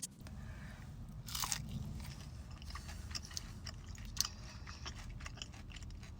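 Close-up chewing of a crispy breaded chicken nugget dipped in sauce: repeated crunches and mouth clicks, the loudest crunch about one and a half seconds in.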